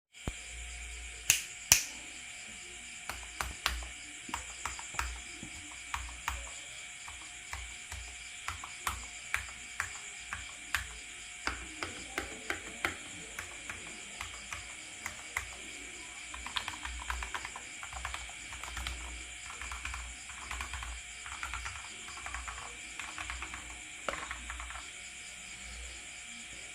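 Maxfit 67 custom mechanical keyboard with stock milky yellow linear switches and a three-layer tempest tape mod, being typed on. The keys are pressed one at a time, a fraction of a second to a second apart, with two loud strokes near the start. About halfway through they turn to faster runs of typing.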